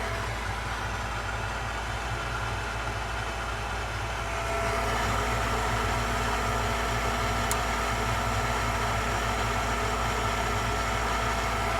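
Gas furnace draft inducer motor running steadily during the pre-purge before ignition. It hums, and about four and a half seconds in it gets a little louder as a steady whine comes in. There is a light click a few seconds later.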